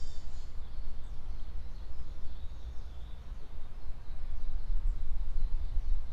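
Wild songbirds singing faintly over a steady low rumble: a high song phrase ends just after the start, then a few faint high calls follow. No woodpecker drumming is heard.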